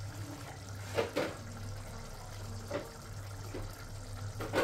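Steel pots simmering and bubbling on an electric stove, chicken cooking in the water it has released, over a steady low hum. A few sharp clicks come about a second in, near three seconds and, loudest, near the end.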